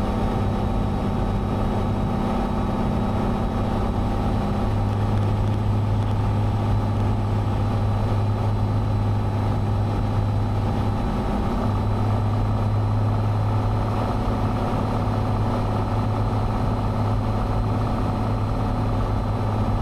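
Cessna 182's piston engine and propeller droning steadily in flight on the landing approach, a constant low hum with no break.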